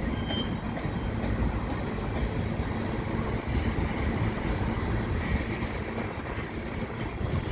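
Freight cars of a slow-moving mixed freight train rolling past, a steady rumble of steel wheels on rail, with a faint high wheel squeal about five seconds in.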